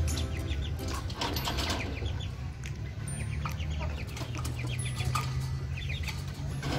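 Rooster rustling its feathers and shifting against the hands holding it while its beak is held open for oral drops, with a few short clucks.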